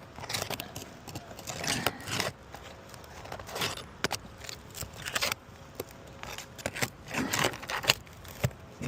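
A roof shingle being pried and worked loose by hand, with irregular scraping, crackling and sharp clicks in scattered spells.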